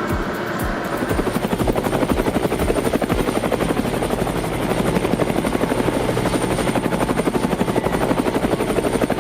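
A machine running with a fast, even chopping beat, several pulses a second, setting in about a second in.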